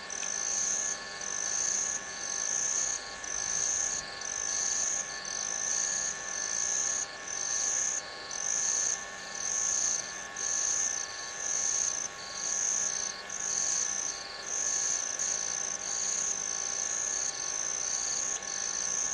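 Night chorus of calling animals: a high-pitched call repeating steadily about once a second over a fainter, steady chorus of lower, even tones.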